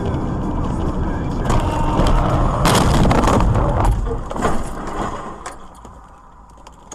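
Car collision heard from inside the car: road noise, then a loud crunching impact about one and a half to three seconds in, followed by a few sharp knocks and rattles as the car comes to rest.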